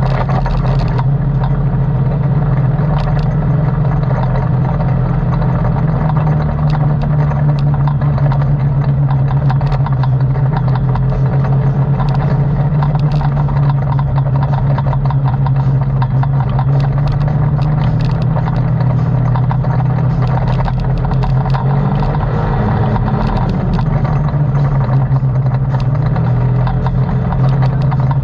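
ATV engine running steadily while riding, its pitch stepping up and down a few times as the throttle changes, with rattling and small knocks over it.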